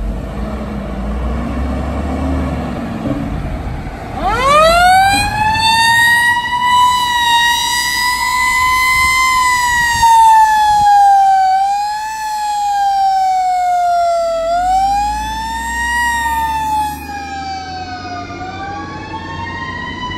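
Fire truck siren on a 1998 American LaFrance ladder truck. It winds up from low about four seconds in, then wails with its pitch slowly rising and falling. Road traffic passes before it starts, and near the end a second siren overlaps it.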